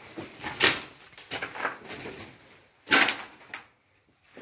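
Footsteps scuffing and crunching on a gritty, debris-covered concrete floor as people move carefully through a dark corridor, with two louder scrapes, one about half a second in and one about three seconds in.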